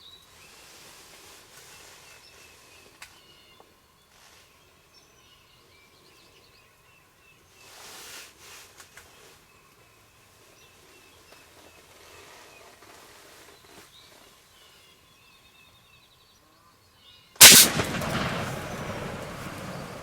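One loud gunshot about seventeen seconds in, echoing away over the next few seconds: the shot that kills a wild turkey gobbler. Before it, faint songbird chirps.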